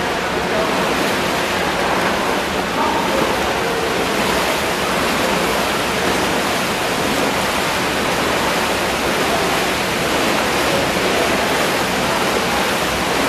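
Steady rushing and splashing of churned water as a dragon boat crew paddles hard in an indoor paddling tank.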